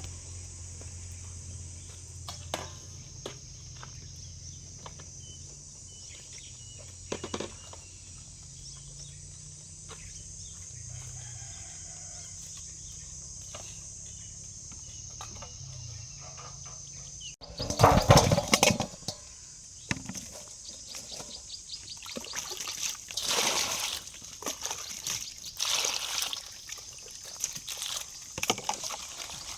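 A steady high-pitched hiss of outdoor ambience with a low hum and a few scattered clicks. A little past halfway it gives way abruptly to louder, irregular splashing and clattering, like water being poured and food being washed or handled.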